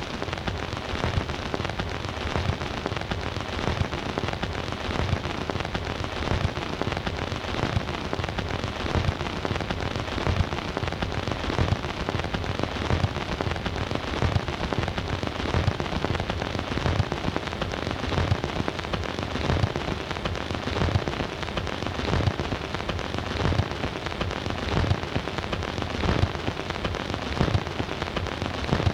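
Surface noise from a record player's stylus running in the lead-in groove of an 8-inch 78 rpm record: a steady hiss thick with crackles and pops, and no music.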